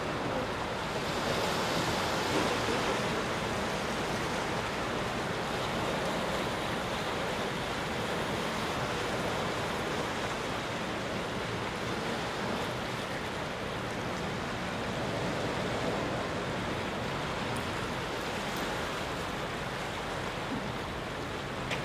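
Sea surf washing steadily over a rocky shore, a continuous rushing wash that swells a little about two seconds in.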